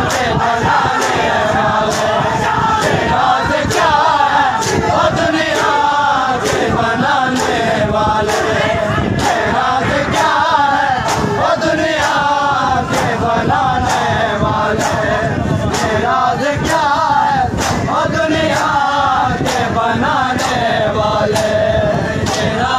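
Crowd of men chanting a noha, a Shia mourning lament, in unison, kept in time by a steady beat of sharp slaps from hands striking chests (matam).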